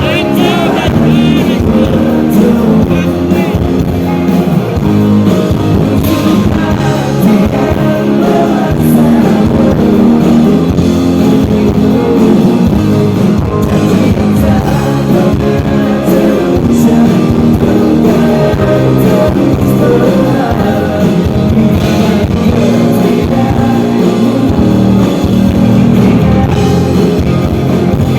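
Live pop-rock band playing with electric guitars and a singer, heard loud and dense through a phone at a concert.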